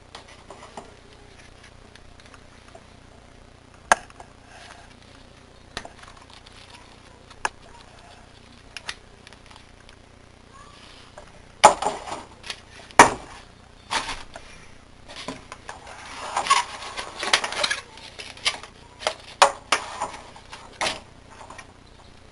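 Handling noises from unboxing a webcam: scattered light clicks and taps, then a few louder knocks about halfway through, followed by several seconds of busy clattering and rustling as things are moved about.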